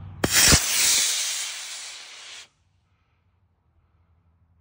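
Estes Dark Silver model rocket launching on a C6-3 black-powder motor: a sharp crack as the motor ignites, then a loud hissing rush of thrust for about two seconds that fades as the rocket climbs away and stops suddenly.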